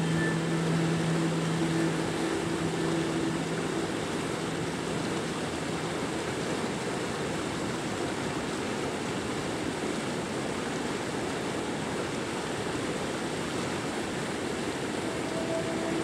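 River water rushing and rippling over a shallow stretch, a steady even hiss. Low held notes of ambient synth music fade out over the first few seconds, and a new held note comes in near the end.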